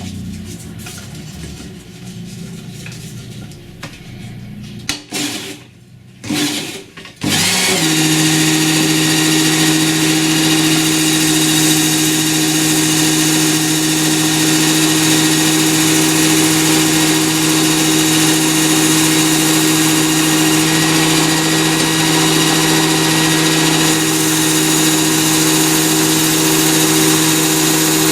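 Work Sharp Ken Onion belt sharpener with the Blade Grinder Attachment switching on about seven seconds in and then running steadily: an even motor hum under the hiss of the abrasive belt.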